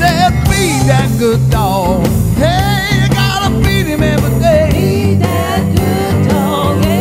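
Blues band music with a steady beat and a bending, wavering lead line over bass and drums.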